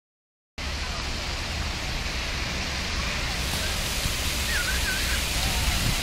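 Steady rushing and splashing of plaza fountain jets falling onto wet paving, starting about half a second in. Faint high-pitched voices come briefly over the water near the end.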